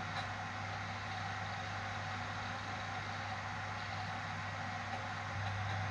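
Steady whirring hum of a Dell Latitude CPi laptop's CD-ROM drive spinning a boot CD while it reads and loads Linux.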